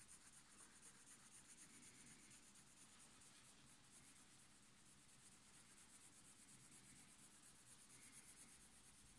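Faint scratching of a black colored pencil shading lightly on sketchbook paper, in quick repeated strokes.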